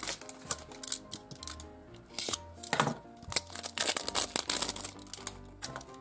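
Plastic shrink-wrap crinkling and tearing in short irregular bursts as it is peeled off a plastic surprise ball, over soft background music.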